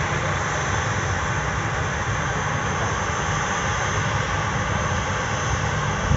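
Airbus A320-214 airliner's CFM56 jet engines running steadily as the aircraft moves along the runway: a loud, even roar.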